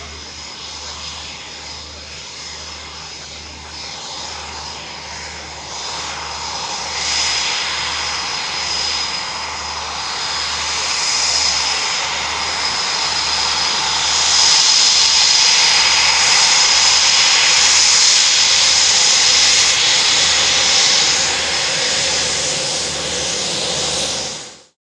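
Twin Eurojet EJ200 turbofans of a Eurofighter Typhoon T jet fighter taxiing: jet rumble with a steady high whine, growing louder as the jet approaches and loudest for several seconds. The sound cuts off suddenly near the end.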